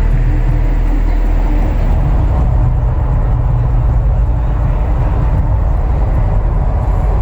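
Mirage volcano show eruption: a loud, deep, steady rumble.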